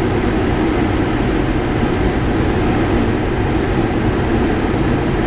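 Steady, loud cockpit noise of a Boeing 737NG on short final, a couple of hundred feet above the runway: airflow over the airframe and engine noise.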